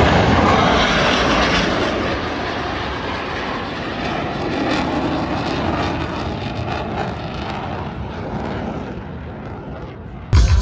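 Blue Angels F/A-18 Super Hornet jets passing overhead: a broad rushing roar, loudest at the start, that slowly fades as they fly away. Music cuts in abruptly just before the end.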